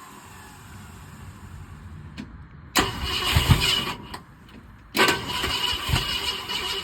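Ford 390 FE V8 being cranked over by its starter in two bursts, the first about three seconds in and the second, longer one about five seconds in, on a first start attempt.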